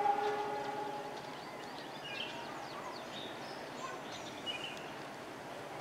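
Quiet outdoor background noise with birds chirping a few times. A brief steady tone sounds in the first second.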